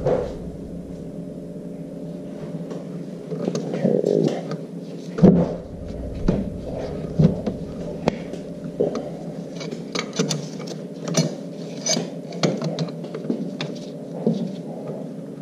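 Metal clicks, knocks and scrapes of oil filter pliers gripping and twisting a motorcycle's spin-on oil filter to break it loose, in irregular taps that come thicker in the second half, over a steady low hum.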